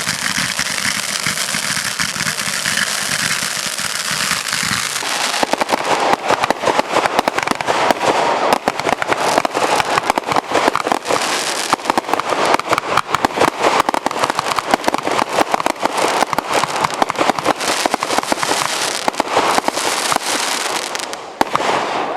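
Fireworks going off: a steady hiss for about five seconds, then a long run of rapid crackling pops that dies away near the end.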